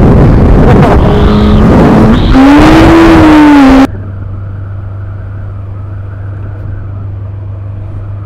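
Yamaha FZS600 Fazer's inline-four engine under way, its note rising and falling under heavy wind noise on the helmet microphone. About four seconds in the sound cuts abruptly to a much quieter, steady engine drone.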